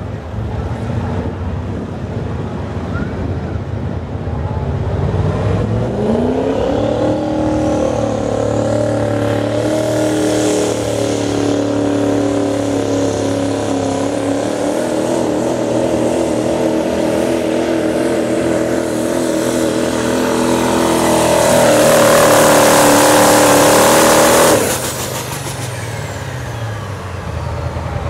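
Pro Street diesel pickup making a pass with the sled: the engine revs up about five seconds in, holds a steady high pitch under full load for most of the pull, grows louder near the end, then drops off suddenly.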